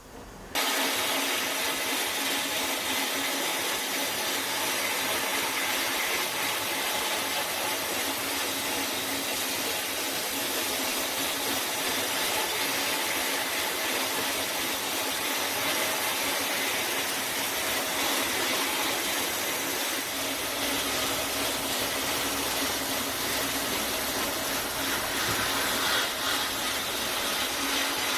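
A power tool starts about half a second in and runs steadily, a continuous whine over a hiss.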